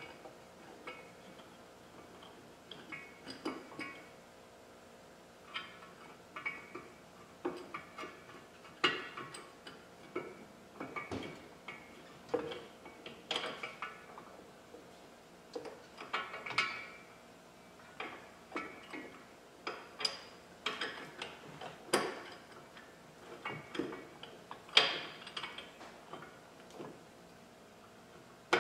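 Irregular metallic clinks, taps and clicks of bolts, nuts and hand tools against a metal winch and plow mount as hardware is fitted by hand under a UTV, with about a dozen sharper knocks, the loudest near the end.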